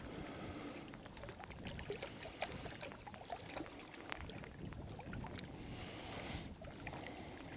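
Faint lapping of small waves against shoreline rocks, with scattered light clicks and ticks throughout.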